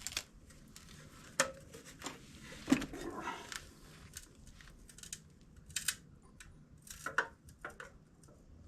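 Scattered metal clicks and clinks of bolts and a heavy part being handled while bolt holes are lined up and bolts threaded in. The loudest is a single clank a little under three seconds in.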